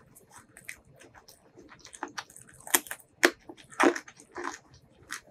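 Close-miked eating of crisp food: soft small clicks of chewing at first, then a run of loud, sharp crunches about three to four seconds in, with a couple more near the end.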